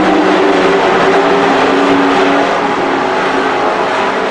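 Race truck engines running hard at speed around a dirt oval, a steady engine drone that eases off slightly about two and a half seconds in.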